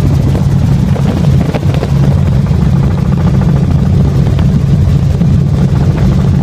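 Helicopter in flight heard from inside the cabin: a loud, steady drone of rotor and engine, deep in pitch.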